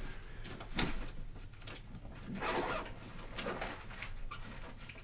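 Scattered clicks, knocks and rustling of someone rummaging for a pair of pliers among tools.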